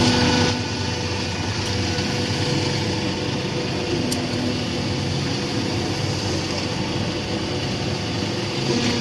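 Machine motor running with a steady hum.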